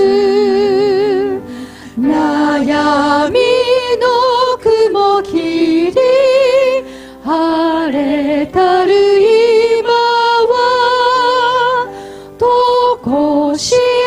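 A Japanese hymn sung by women's voices leading the congregation, with piano accompaniment. The voices hold long notes with vibrato and break off briefly between phrases.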